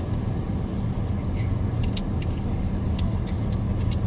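Steady low road and engine rumble of a car heard from inside the cabin while driving, with a few short clicks scattered through it.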